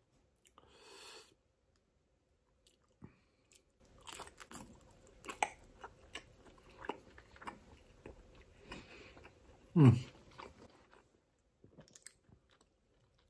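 Close-miked chewing of a pan-fried pot sticker (gyoza): clusters of small wet clicks, smacks and light crunches, with one louder short hum of falling pitch about ten seconds in.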